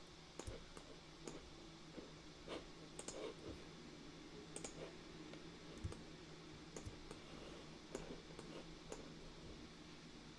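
Computer mouse clicks at irregular intervals, faint, over a steady low hum.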